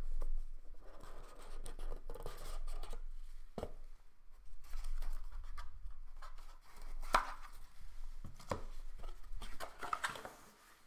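A cardboard trading-card box being handled and opened by hand: rustling and scraping of cardboard, with a few sharp taps and knocks scattered through.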